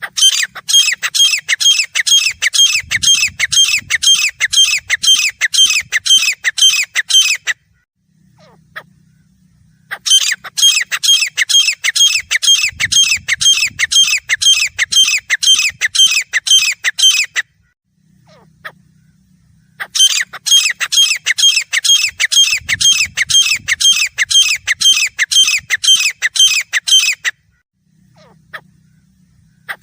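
Grey francolin calling: three long bouts of rapid, evenly repeated shrill notes, each lasting about seven seconds, with short pauses between them.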